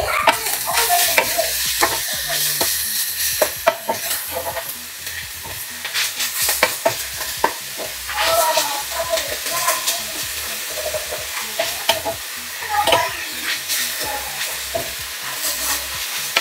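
Stir-fry of stink beans (petai), torch ginger and anchovies sizzling in a hot pan while a utensil scrapes and knocks against the pan, stirring the seasoning through.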